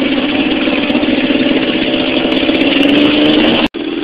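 Dirt bike engine running steadily, its pitch creeping up slightly; the sound breaks off for an instant near the end.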